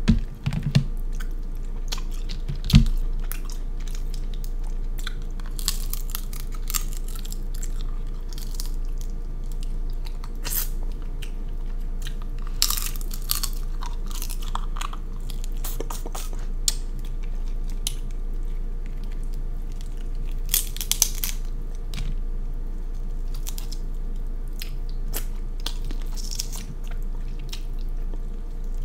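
Close-miked eating sounds: chewing king crab meat, with scattered crackling clicks of the crab shell being broken apart by hand.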